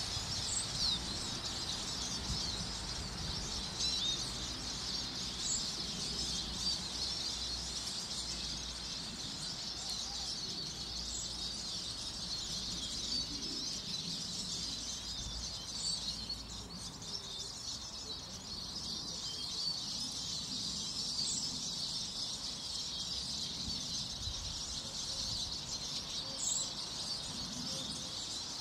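Small songbirds chirping and twittering without a break, many short overlapping calls packed together, with a few higher single notes standing out every few seconds. A low rumble runs underneath.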